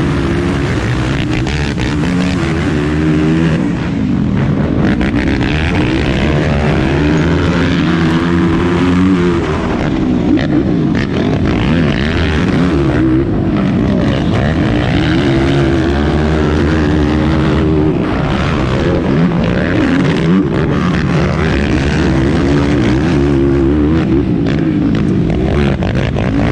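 Yamaha YFZ450R quad's single-cylinder four-stroke engine running hard under race load, revving up and down repeatedly through shifts and throttle changes, heard close up from the onboard camera with wind and track noise.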